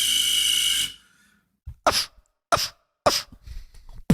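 A beatboxer's loud mouth sound: a harsh hissing blast with a high steady tone in it for about a second, cut off sharply, then after a pause three short, sharp cough-like bursts.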